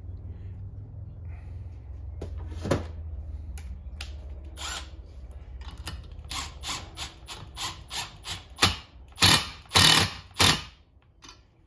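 A valve spring compressor worked by hand on a 6.1 Hemi cylinder head while a valve spring is reinstalled: a run of short, sharp metal clicks, about two to three a second, starting about halfway through and loudest near the end, over a steady low hum.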